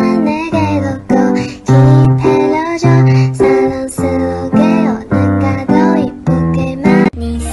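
Background music: a song with a steady beat, piano or keyboard chords and a singing voice.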